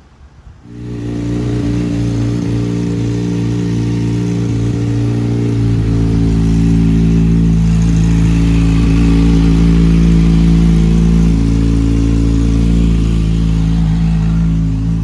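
Kawasaki ZX-6R inline-four engine running at a steady idle, starting abruptly about a second in and holding an even note.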